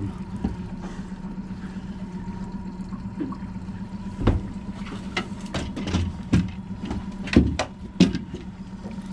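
Honda outboard motor running steadily at idle, a low hum with a thin steady tone above it. Scattered sharp knocks of rod, reel and landing net being handled on the boat, the loudest about four seconds in and again near the end.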